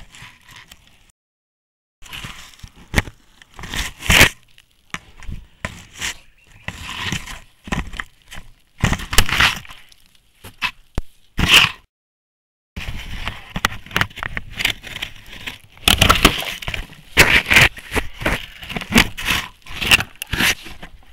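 A Sri Lankan elephant handling a camera trap at close range: irregular scraping, rubbing and knocking of the camera housing, with crackling sounds. The sound cuts out completely twice, about a second in and again about twelve seconds in.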